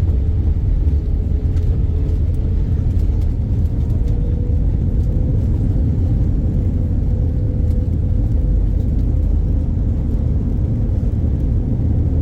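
Steady low rumble inside a passenger airliner's cabin around landing, with a faint steady hum running through it.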